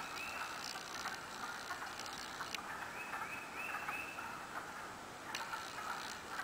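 Runs of short, high whistled calls from an unseen animal in the woods: two notes at the start, then four in a quick series near the middle.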